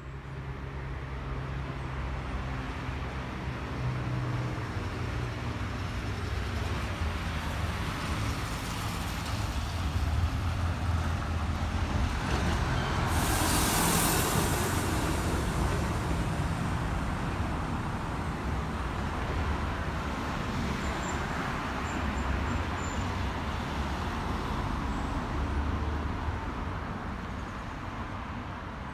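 Road traffic: the low rumble of vehicle engines and tyre noise, with a vehicle passing close about halfway through, the loudest moment.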